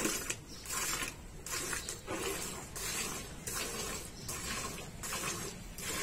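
Water buffalo being milked by hand: jets of milk hissing into a steel pail in a steady rhythm of about two squirts a second.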